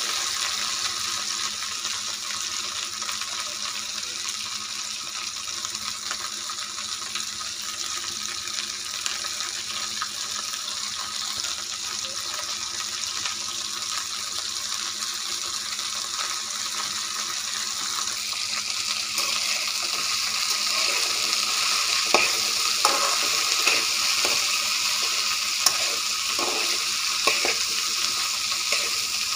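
Chopped okra sizzling steadily in oil in a metal wok as a steel spatula stirs it. In the last third come a series of sharp clicks and scrapes of the spatula against the pan.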